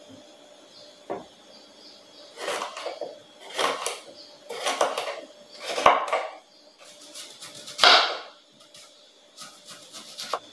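Kitchen knife cutting through a red bell pepper on a wooden cutting board: a single knock, then about five separate short cuts, each under half a second, the loudest near the middle and about eight seconds in.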